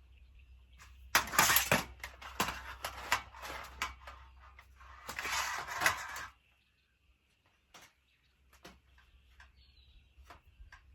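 Scraping and rattling of raised-bed panels being handled, with scattered sharp clicks, as a bolt is worked into the panel holes. Two longer scrapes come about a second in and about five seconds in, then only a few faint clicks.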